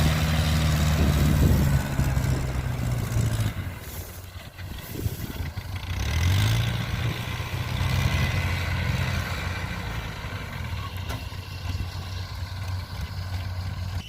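Kubota DC70 combine harvester's diesel engine running with a steady low hum; it eases off about two seconds in and picks up again with a slight rise in pitch around six seconds in, then runs steadily.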